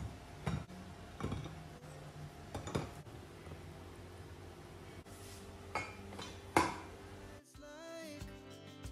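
Washed plates and glasses being set into a dish rack, with about six separate clinks and knocks. Background music comes in near the end.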